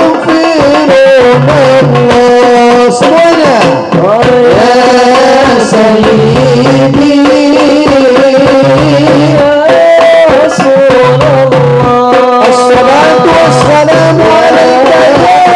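A man singing sholawat, an Islamic devotional song, into a microphone with long, ornamented held notes. A regular beat of drum accompaniment repeats about every second and a half.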